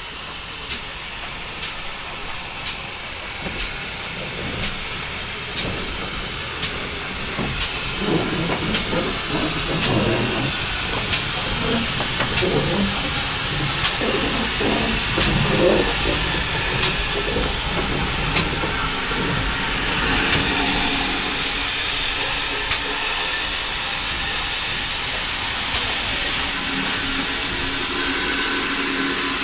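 GWR 5700 class pannier tank steam locomotive drawing slowly closer and passing at close range, getting louder over the first several seconds. A regular ticking beat is followed by rough puffs of exhaust as it comes alongside, then a strong steam hiss.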